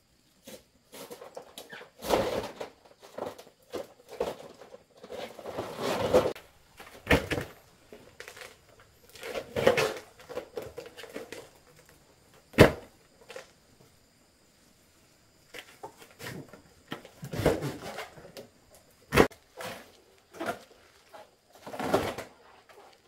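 Irregular rustling and handling noises in short bursts, with two sharp knocks or clicks, one about halfway through and one about two-thirds through.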